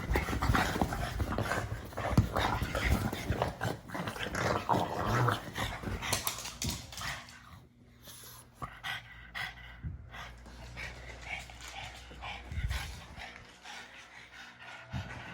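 A pug making its noises in quick irregular bursts, loudest over the first seven seconds or so, then fainter and more spaced out.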